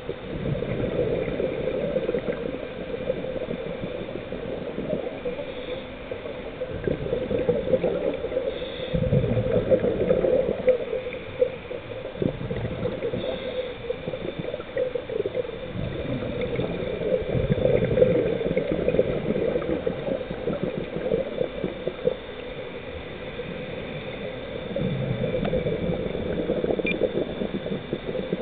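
Scuba diver's exhaled bubbles gurgling underwater, swelling in a surge with each breath about every seven to eight seconds, four times in all.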